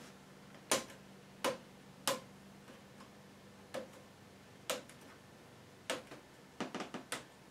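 K'NEX plastic rods and connectors clicking as they are worked by hand on the machine's frame: about a dozen sharp, irregular clicks, with a quick run of them near the end.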